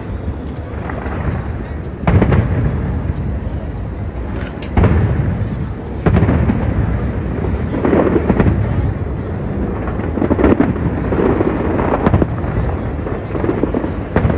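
New Year fireworks going off: a string of deep booms a few seconds apart over a continuous rumble.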